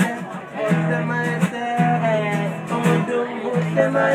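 Acoustic guitar strummed in repeated held chords, with voices singing a tune over it: two buskers performing.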